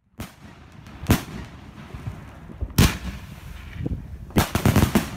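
Fireworks going off: a sharp bang about a second in, another a little before three seconds, then a quick string of several bangs near the end, over a steady background hiss.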